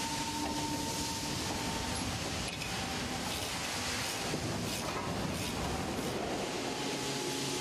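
Steady factory-floor ambience in a tank assembly hall: an even machinery hum and hiss with a few faint tones, and a few light clicks in the middle.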